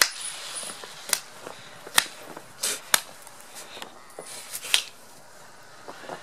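Snow crunching in about half a dozen sharp, irregular crunches as a fluffy puppy bounds and digs in it.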